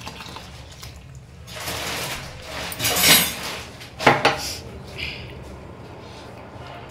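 Thick coconut milk poured into a pot of boiling jaggery syrup, a rush of liquid that swells for a couple of seconds, then a metal ladle knocking sharply against the aluminium pot a few times as the mixture is stirred.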